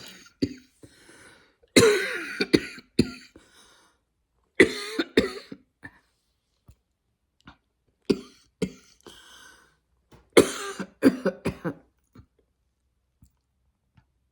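A woman coughing in four bouts, each a cluster of several quick coughs, with quiet pauses between the bouts.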